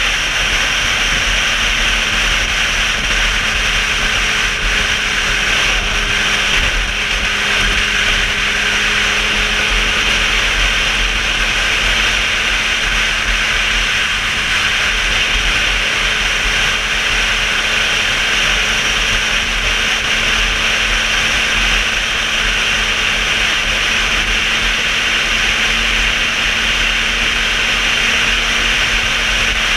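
Sport motorcycle riding at a steady cruising speed: the engine runs at an even pitch under a constant rush of wind noise on the microphone.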